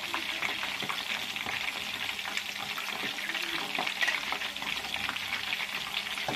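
A spoon scooping cassava-leaf and sardine stew out of a wok into a ceramic bowl: small clinks and liquid splashes over a steady hiss from the just-cooked stew in the hot wok.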